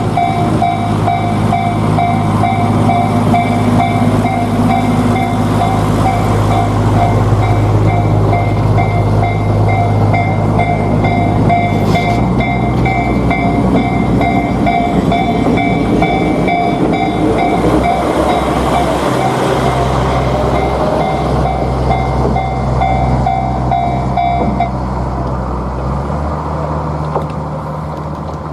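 Japanese level-crossing warning bell ringing its rapid "kan-kan" clang while a diesel railcar runs through, its engine note shifting as it passes; the bell cuts off about three-quarters of the way in, leaving the engine running.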